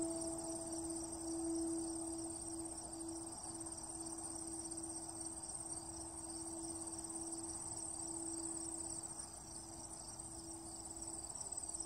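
Crickets chirping steadily in a pulsing high-pitched chorus. Underneath, a single held note of the film score slowly fades away before the end.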